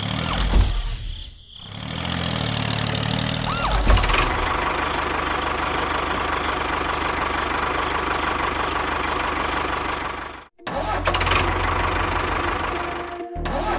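A motor running steadily with a low, pulsing rhythm and a steady whine, in several sections that cut off abruptly and start again.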